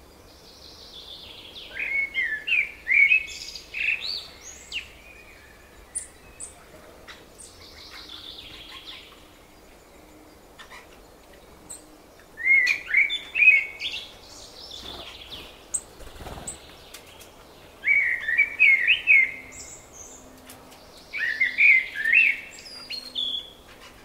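Songbird singing: five short, quick warbling phrases a few seconds apart, with a few thin high single notes between them.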